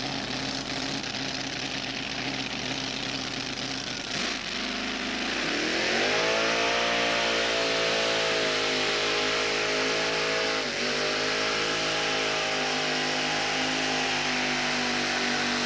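Pulling tractor's engine running hard: about four seconds in it drops, then climbs steeply in pitch and holds at high revs under load, with a short dip about eleven seconds in.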